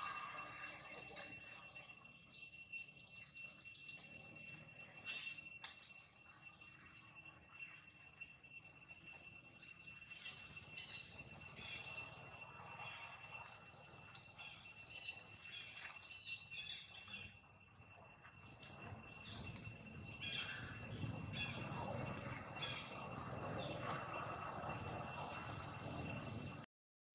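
Birds chirping in short, repeated high calls over steady, high-pitched insect tones that hold throughout.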